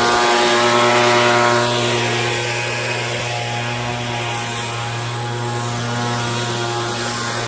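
A loud, steady motor drone with a constant pitch, beginning abruptly and cut off suddenly at the end; a falling sweep runs through it near the middle.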